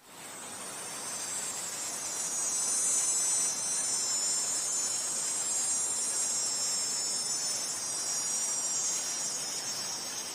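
Insects chirping in a dense, steady, high-pitched chorus of many overlapping tones, over a faint background hiss.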